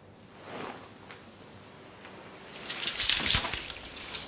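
Clothing rustling and bodies jostling as a crowd of men seize one man. It is quiet at first, then a loud rustling scuffle comes about three seconds in, followed by a few sharp clicks.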